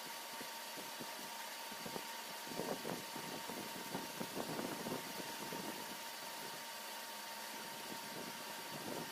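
Milling machine running steadily, with a constant whine, as a disc cutter cuts helical gear teeth into a plastic blank. Irregular scratchy crackles of the cut are densest from about two and a half to five seconds in.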